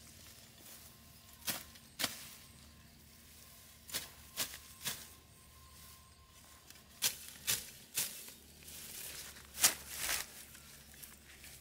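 A hand-held blade slashing through leafy weed stems: about ten short, sharp cutting strokes in irregular clusters, the loudest near the end. Cut greens rustle between the strokes.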